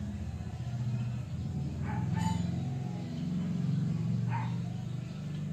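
A dog barking twice, short sharp barks about two seconds in and again a little past four seconds, over a steady low rumble.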